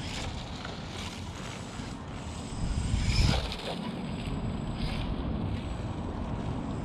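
Wind buffeting the camera microphone, a low rumbling rush that swells louder for about a second near the middle.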